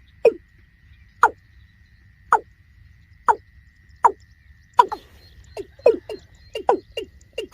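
Watercock calling: a series of short notes, each dropping in pitch, about one a second at first and coming faster and more doubled from about five seconds in. A faint steady high whine runs underneath.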